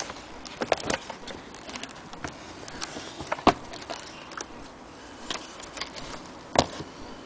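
Handling noise from an old accordion being moved and touched: scattered light clicks and knocks, with sharper knocks about a second in, halfway through and near the end. No reeds are sounding.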